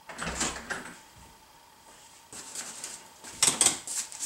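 An interior door is opened, with a noisy rattle and low thud in the first second. Then come footsteps and the rustle of a cardboard box being carried in, with a few sharp knocks near the end.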